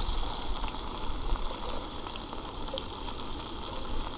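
Crappie fillets frying in butter in a skillet on a small propane camp stove: a steady sizzle.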